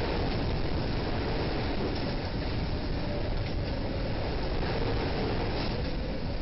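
Tornado winds roaring through the school building: a steady, deep rumble that never lets up, heard through a surveillance camera's microphone.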